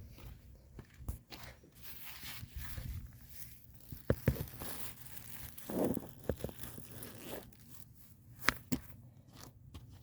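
Handling noises: scattered knocks and clicks, with rustling and footsteps, as someone moves about next to the recording phone. The two sharpest knocks come about four seconds in and near the end.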